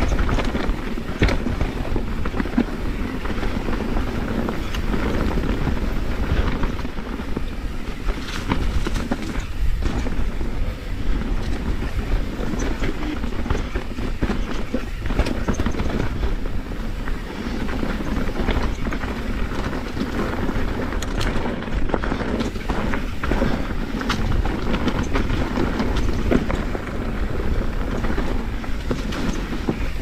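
Kona Process X mountain bike riding fast down rocky dirt singletrack: tyres rumbling over the ground, with constant rattling and frequent sharp knocks from the bike over rocks and roots, and wind noise on the microphone.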